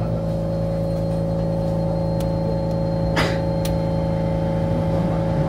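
Onboard running sound of an Osaka Monorail 2000 series train with Hitachi IGBT inverter drive: a steady low rumble under several steady electrical humming tones. A brief higher squeal rises and falls about three seconds in, with a couple of faint clicks around it.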